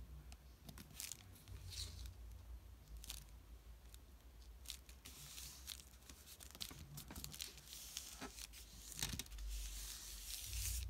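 Paper rustling and scraping as hands press and rub a paper image card flat onto a cardstock page: a string of short, irregular dry rustles, busiest in the second half, over a faint low hum.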